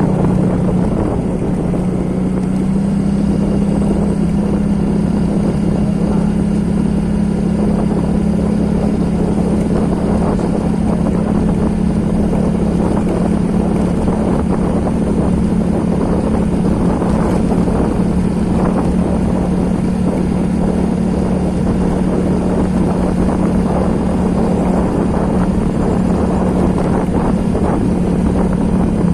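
A small engine running steadily at one constant speed, with a dense hiss over it.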